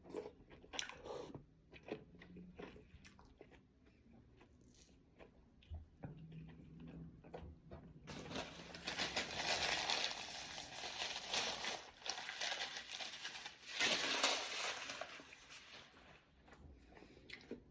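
A person chewing crunchy fried fish bones close to the microphone: scattered crunches at first, then a long stretch of dense, louder crunching from about eight seconds in that fades near the end.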